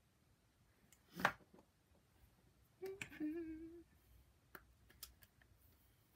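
Quiet handling of makeup: a sharp knock about a second in, a brief hummed "mm" about three seconds in, then a few light clicks as a makeup palette is handled.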